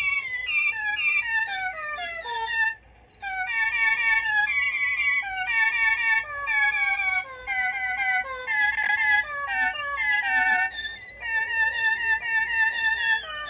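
A group of animals calling together: many overlapping short yips, each falling in pitch, at several pitches at once, with a brief lull about three seconds in.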